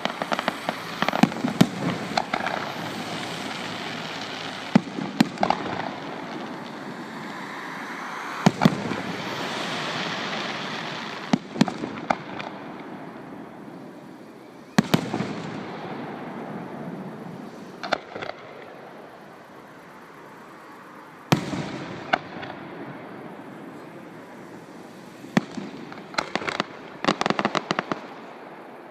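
A fireworks display: shells bursting with sharp bangs over a continuous crackling hiss. The bangs come in scattered groups, with a rapid run of reports near the end.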